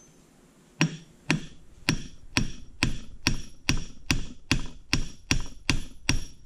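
Ball-peen hammer striking a small steel pin held in pliers on a vise anvil: about a dozen sharp metallic blows, roughly two a second, starting about a second in, each with a bright ring. The pin is being peened to roughen it so it fits tighter in its hole.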